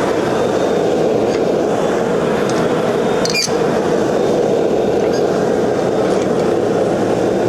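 Lit forge running with a loud, steady rushing noise. A short sharp clink about three and a half seconds in.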